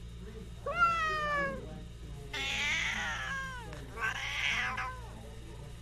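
A cat meowing three times, each call falling in pitch; the second and third are longer and harsher. A steady low hum runs underneath.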